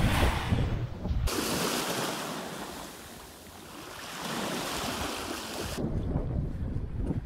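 Wind buffeting the microphone, then small waves washing up a sandy beach, a hiss that ebbs and swells once before cutting off. Near the end the wind rumble on the microphone returns.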